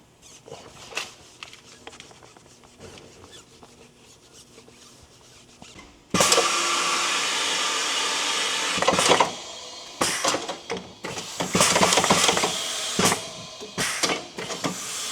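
Tire mounting work on a wheel: light clicks and handling at first. About six seconds in, a sudden loud hiss starts and holds for about three seconds. Several shorter hissing bursts follow.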